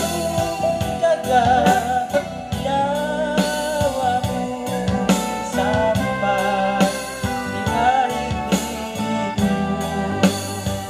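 A man sings a gospel praise song into a microphone, backed by a Yamaha electronic keyboard playing sustained chords over a programmed drum beat.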